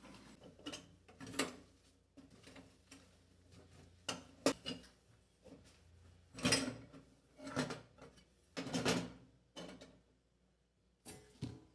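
Irregular household handling sounds: about a dozen short knocks, clicks and brief scrapes of objects being moved and set down, the loudest a little past halfway.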